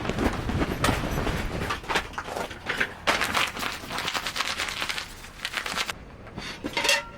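Close rustling and scraping handling noises in quick, irregular strokes, busiest in the middle, quieter after about six seconds, with one last burst near the end.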